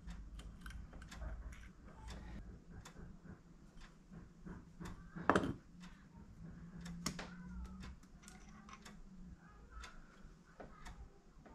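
Metal engine parts and hand tools clicking and clinking as they are handled during the clutch-side teardown, with irregular light ticks and a louder knock about five seconds in and another about seven seconds in.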